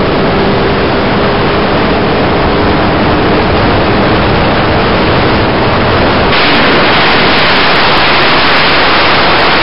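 Loud steady rushing of wind over the microphone from a moving vehicle at highway speed, with a faint engine drone under it for the first few seconds. About six seconds in the noise turns brighter and harsher.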